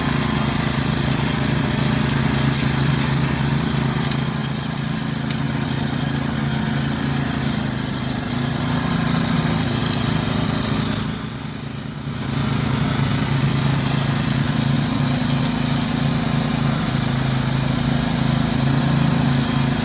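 Cub Cadet CC30H rear-engine riding mower running steadily while mowing and bagging leaves, its engine hum even, briefly quieter a little past halfway.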